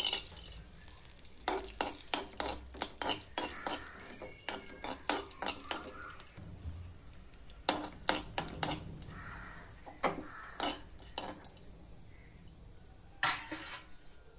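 Metal spoon clinking and scraping against an aluminium kadai as cashew nuts are stirred and roasted in ghee, with a faint sizzle. The clinks come in two runs of quick strokes, then one more near the end.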